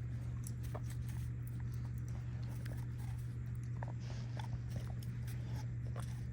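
A dog moving about, with faint scattered clicks and scuffs of its steps, over a steady low hum.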